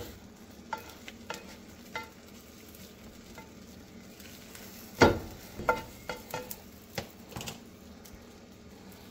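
A silicone spatula working an omelet in a nonstick frying pan, with light taps on the pan over a faint sizzle. A sharp knock about five seconds in, followed by a few lighter knocks.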